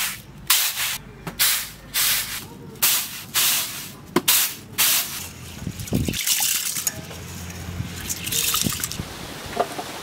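Raw rice being winnowed in a flat bamboo tray: a rhythmic swish of grain about once or twice a second for the first five seconds. Then water splashes and trickles as the rice is rinsed by hand in a steel bowl of water.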